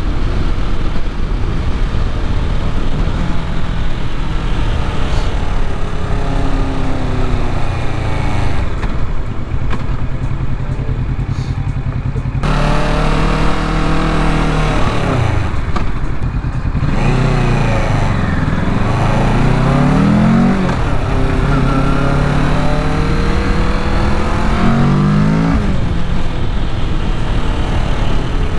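Kawasaki Ninja 650's parallel-twin engine running as the motorcycle is ridden, its pitch climbing as it accelerates and dropping back several times as it shifts and slows.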